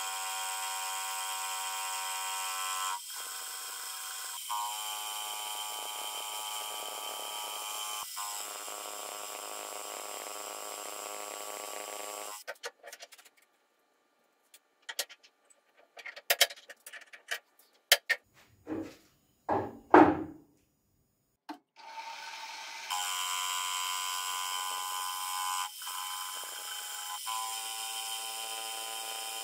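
Bench milling machine running, its spindle whining steadily with small pitch steps as the end mill cuts a steel part. In the middle the machine stops and there are sharp clicks and several loud metallic knocks as the vise and workpiece are handled, then the spindle whine starts again and runs on.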